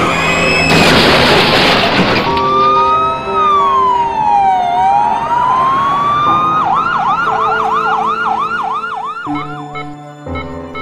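A loud crash about a second in, then an emergency siren wailing slowly up and down before switching to a fast yelp, about four cycles a second, that stops near the end. Background music plays underneath throughout.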